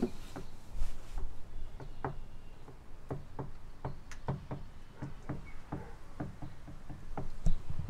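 Hammering on a wooden wall frame: a run of sharp knocks, unevenly spaced at about two or three a second, with a louder thud about a second in and another near the end.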